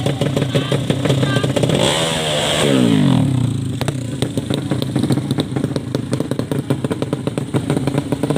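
Underbone drag-racing motorcycle engines running with rapid firing pulses. About two seconds in, one engine note gets louder and then falls steeply in pitch, as a bike comes off the throttle or passes.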